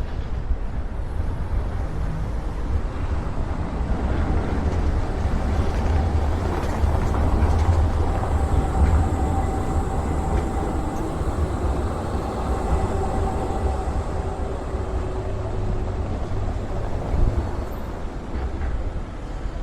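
Low wind rumble buffeting a camera microphone fitted with a wind protector, steady and gusting, with a faint steady hum running through the middle of it.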